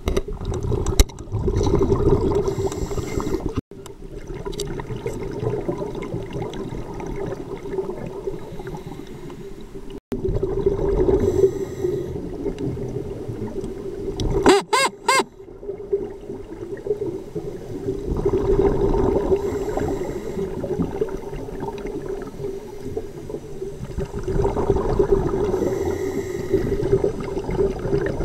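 Scuba regulator breathing heard underwater: exhaled bubbles gurgle in swells every several seconds over a steady hum. About halfway through comes a brief run of three or four quick pitched tones.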